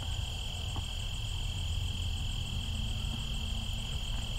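Crickets trilling in a steady, unbroken high note, with a fainter, faster-pulsing insect call higher up, over a low rumble.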